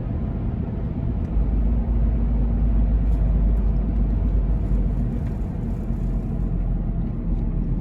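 Car in motion heard from inside the cabin: a steady low rumble of road and engine noise, rising a little about a second and a half in.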